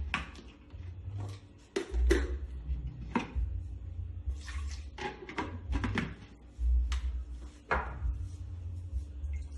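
Plastic blender jars and lids being handled and fitted: a dozen or so irregular clicks and knocks over dull low bumps against the counter. No blender motor is running.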